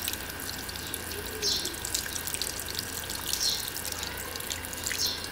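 Water poured onto a plastic pump control-panel housing, running through it and splashing and dripping onto a concrete floor.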